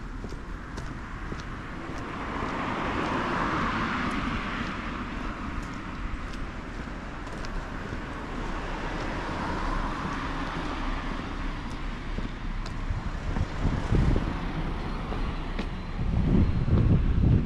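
Street traffic: cars passing, their tyre and engine noise swelling and fading away twice. Faint ticks run throughout, and a low rumble builds near the end.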